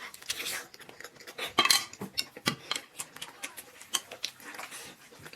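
Eating utensils clicking and clinking against a bowl and dishes during a meal, a string of short sharp clicks with a louder burst about one and a half seconds in.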